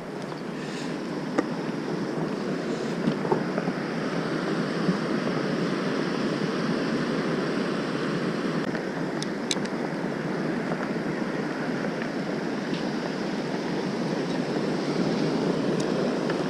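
Steady rush of small waves washing onto a sandy beach, with wind on the microphone and a few light clicks.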